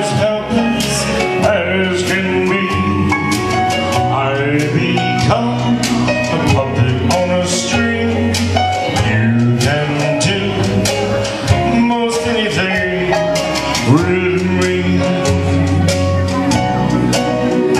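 A man singing karaoke into a handheld microphone over a recorded backing track with guitar and a steady beat.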